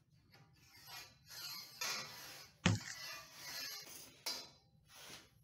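Round metal tubing sliding and rubbing through a manual tube bender's die as it is loaded, in faint scrapes with a sharp click about halfway through.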